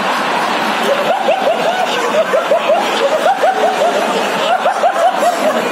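A group of men laughing at a joke, with quick repeated ha-ha sounds overlapping one another.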